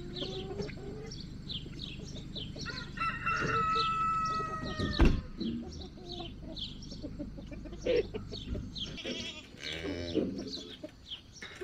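Chickens clucking and chirping, with a rooster crowing once in a long call about three seconds in. A sharp knock follows at about five seconds. A low steady hum underneath stops about nine seconds in.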